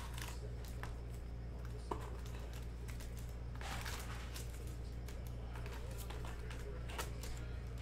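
Faint rustling and light clicks of trading-card boxes and packs being handled, with a short louder rustle about three and a half seconds in, over a steady low hum.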